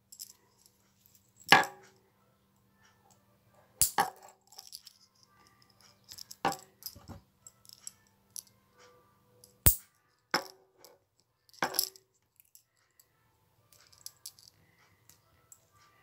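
Metal nail clipper snipping through thick toenails: a string of about eight sharp clicks at irregular intervals, the loudest about a second and a half in and near ten seconds.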